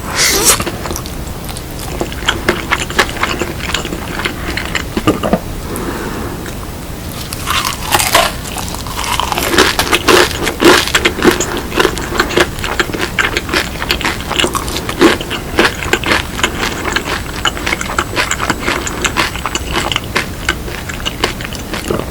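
Close-miked crunching and chewing of seasoned fried chicken: many crisp crackles of the fried coating being bitten and chewed, coming thicker from about eight seconds in.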